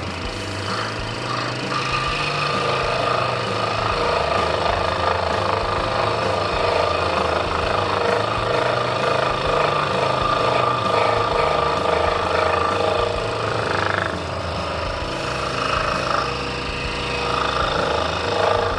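Electric scroll saw running, its blade stroking rapidly up and down with a steady buzz, the sound briefly dipping twice in the second half.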